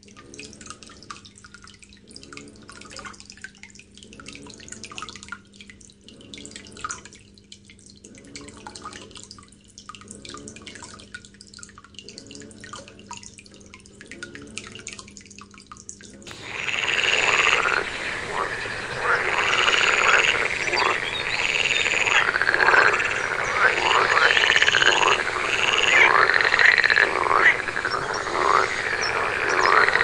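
Aquarium water bubbling and dripping over a steady low hum; then, about halfway through, a loud chorus of frogs croaking, with many calls overlapping in quick repeated strokes.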